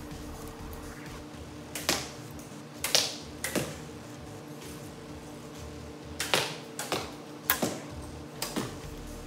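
Compound bows being shot down a line of archers: about eight sharp snaps of released strings, in two irregular bursts, over steady background music.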